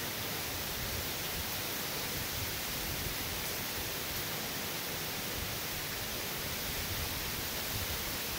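Steady hiss of heavy rain in hurricane wind.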